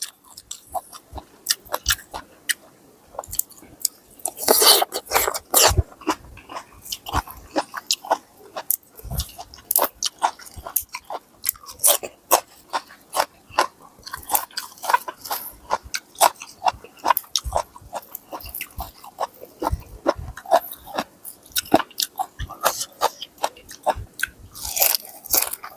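A person chewing and biting crisp food close to the microphone, with many irregular sharp crunches: eating long bean salad with crispy pork rinds and raw vegetables.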